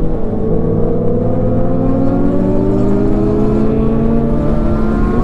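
Sport motorcycle engine pulling hard under acceleration, its pitch climbing steadily, dropping at an upshift about four seconds in, then climbing again.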